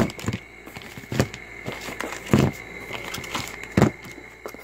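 Plastic-bagged PTS airsoft magazines being handled and set down in a cardboard box: crinkling bags and about four sharp knocks, roughly a second apart.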